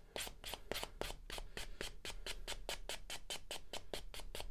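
3M foam sanding block rubbed by hand over a 3D-printed plastic part in quick back-and-forth strokes, about six a second, with an even scratchy sound.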